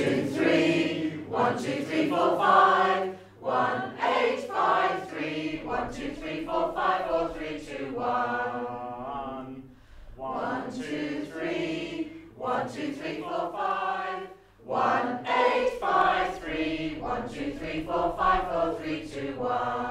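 Choir singing a warm-up exercise on numbers, stepping up and down the scale: "one, two, three; one, two, three, four, five; one, eight, five, three; one, two, three, four, five, four, three, two, one". The phrases repeat, with short breaks between them.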